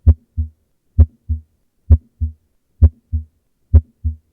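Normal heart sounds, lub-dub: five pairs of beats at about 65 a minute. Each pair is a louder S1 (the atrioventricular valves closing) followed about a third of a second later by a softer, single S2 (the semilunar valves closing), as heard in a normal individual.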